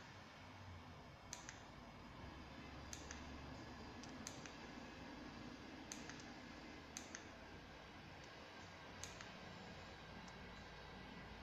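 Faint, sharp clicks at irregular intervals of one to two seconds, several in quick pairs, over a low steady hum: the switching clicks of an LED strobe light strip's controller as the flash pattern changes.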